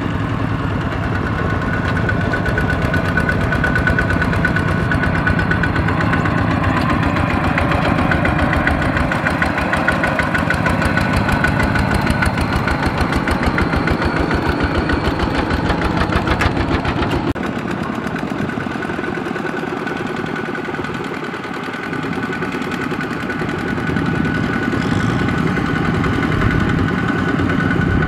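Kubota RT120 walking tractor's single-cylinder diesel engine chugging steadily under load as it hauls a trailer of rice sacks through mud. The engine note drops and thins for several seconds from about 17 s in, then comes back up.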